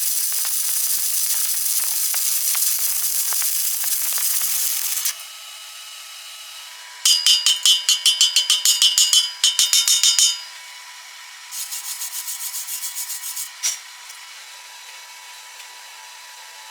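Stick welding arc crackling and hissing steadily, cutting off suddenly about five seconds in. After a short pause come a run of quick, ringing metal strokes at about five a second, then a quieter, faster run and a single click.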